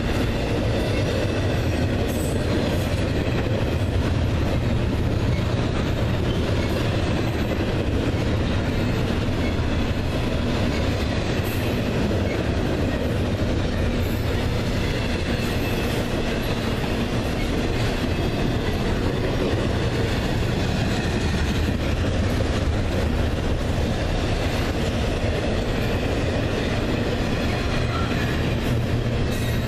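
Double-stack intermodal container cars of a freight train rolling past at speed: a steady rumble and rattle of steel wheels on the rails.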